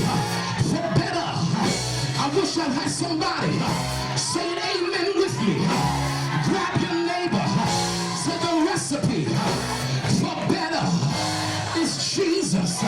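Live church music, with held low chords under a voice singing over it.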